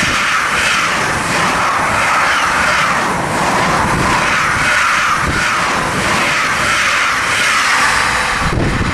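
Fast passenger train passing close by: a loud, steady rush of wheels on rail and displaced air that swells and fades as the coaches go past. It breaks off abruptly near the end.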